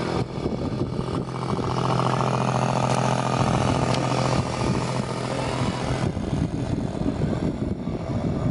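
A small motor running steadily with a buzzing hum, fading away about six seconds in.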